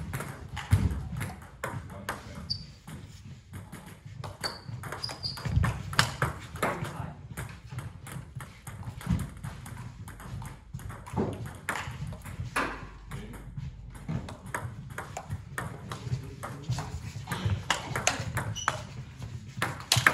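Table tennis balls clicking irregularly off bats, tables and the floor in a large hall, with a few short high squeaks now and then.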